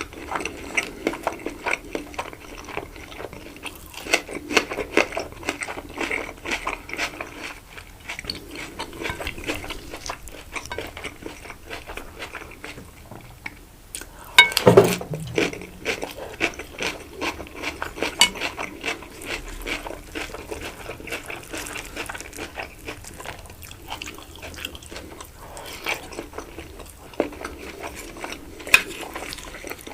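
Close-miked chewing and wet mouth sounds of eating rice-stuffed chicken, made up of many small clicks and smacks. A louder thump comes about halfway through.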